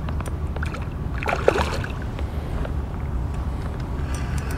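Steady low rumble of wind and water around a kayak on open water, with a few light clicks and knocks and a short rush of noise about a second and a half in.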